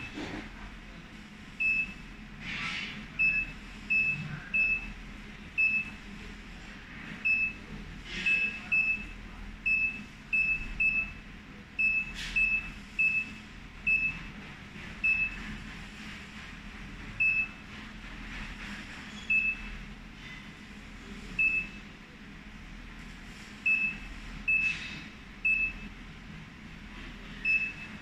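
Touchscreen control panel of a vacuum planetary centrifugal mixer beeping at each key press as settings are entered. The beeps are short, high and single, a couple dozen of them at irregular intervals. A few louder clicks fall among them, over a low steady hum.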